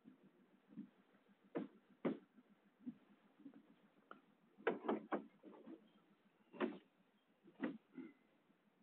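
Irregular knocks and clunks, about eight in all, with a quick run of three about five seconds in, over faint background hiss.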